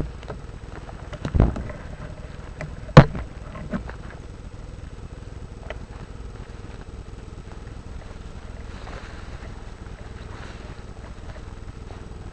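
Handling and wind rumble on a rifle-mounted camera as it is carried through brush. There is a dull thump just over a second in and a sharp knock about three seconds in, the loudest sound, followed by a few light ticks.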